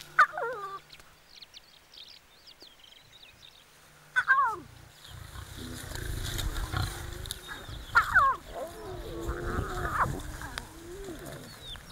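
Lion cubs calling: three short, high cries that fall in pitch. From about five seconds in, lions give a low, rumbling growl beneath them.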